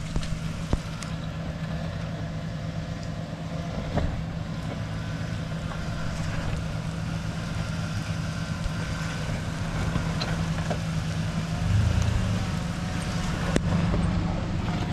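Ford Explorer SUV's engine running at low speed as it creeps along a muddy dirt track, a steady low hum that swells briefly as the SUV draws near, about two seconds from the end. A few short knocks come in among it.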